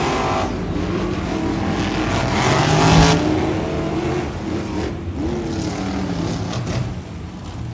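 Several monster trucks' supercharged V8 engines running and revving on the stadium floor. The loudest rev comes about three seconds in, with a shorter one about two seconds later.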